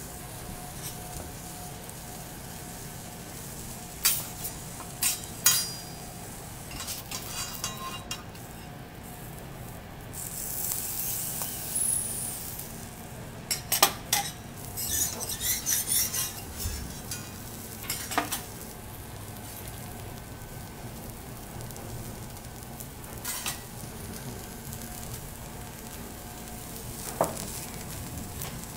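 Cuttlefish and a potato slice sizzling steadily on a steel teppanyaki griddle. The sizzling swells louder about ten to twelve seconds in. Scattered sharp metal clicks and clinks sound over it.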